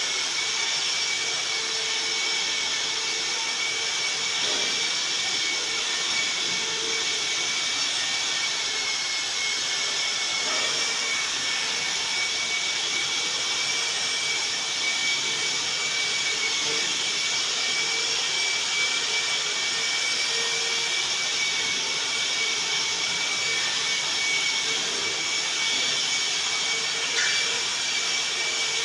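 Electric wall sander with dust extraction running steadily while sanding a plastered wall: a constant motor whine over the hiss of suction.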